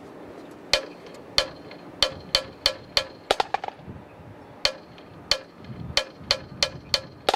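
Marching snare drums struck in single strokes at a slow, slightly uneven pulse, about fifteen sharp hits with a short pause in the middle, some landing as doubled or smeared hits. The drummers time from the front of the field, so the sound opens up and does not arrive together.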